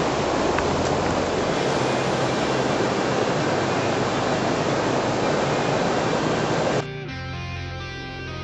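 A loud, even rushing noise, with no clear source, cuts off suddenly about seven seconds in. Guitar music follows.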